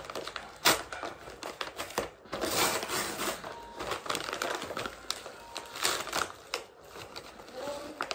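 A paper mailing envelope being torn and pulled open by hand, in irregular bursts of crinkling, rustling and tearing.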